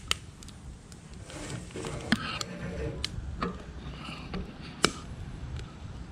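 Wood fire in a homemade aluminium-can stove crackling with several sharp pops, over a steady low rumble of wind on the microphone. A stretch of rustling and knocking comes in the middle.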